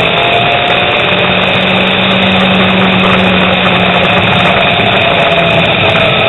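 Engine and road noise of a vehicle driving at speed, loud and steady, with a low even hum held for a few seconds in the middle.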